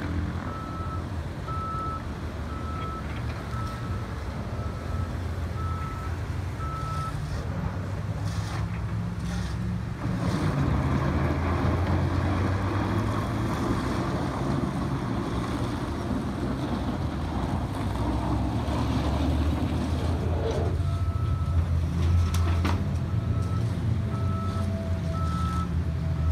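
Heavy construction machines running at a demolition site, their engines a steady low drone that grows louder about ten seconds in. A reversing alarm beeps about once a second for several seconds at the start, stops, and comes back near the end.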